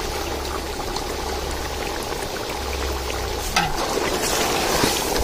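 Thick chicken curry bubbling at the boil in a large metal pot. About three and a half seconds in, a metal ladle clicks against the pot and the curry churns as it is stirred.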